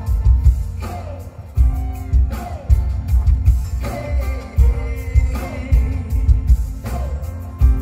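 Live concert music through a big PA: a male singer singing into a microphone over a band with electric guitar and a heavy, steady bass beat, heard from the crowd.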